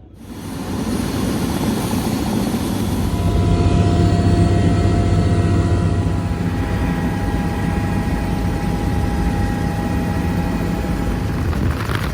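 Helicopter flying close by, its rotor and engine running steadily. The sound cuts in abruptly and swells to its loudest a few seconds in.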